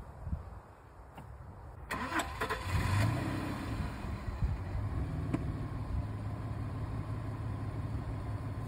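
Audi A6 C5 2.8 quattro's V6 engine starting about two seconds in: a brief crank, then it catches with a short rev and settles into a steady idle.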